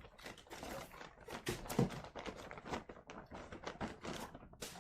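Packaging being handled and opened: an irregular run of taps, clicks and rustles, with a few louder knocks.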